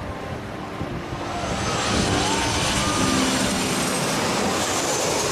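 Jet airliner's engines passing low overhead: a dense, loud rush that swells about a second or two in and then holds, with a few faint gliding whines.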